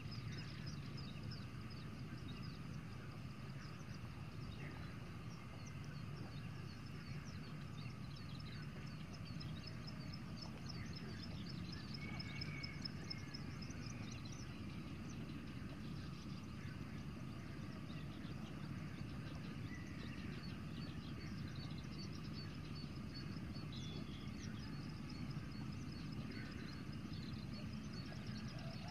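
Outdoor ambience: a steady low rumble under a rapid, high-pitched chirping that goes on throughout.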